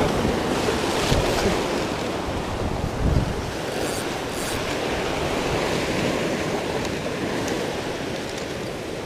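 Surf breaking and washing over the rocks below, with wind buffeting the microphone. A low thump stands out about three seconds in.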